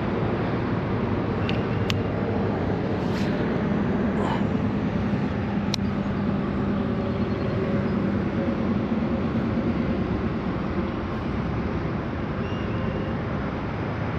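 Steady mechanical rumble with a low hum, like distant road traffic or a motor, and a few sharp ticks in the first six seconds.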